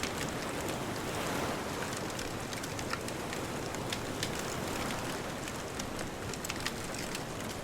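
Wood bonfire crackling, with scattered sharp pops, over a steady rush of distant ocean surf.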